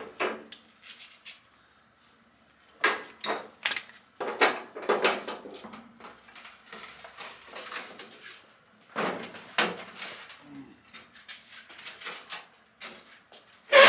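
Irregular clicks, rattles and knocks of a ratchet tie-down strap being released and unhooked from a motorcycle, in short clusters, with a sharp knock at the end the loudest.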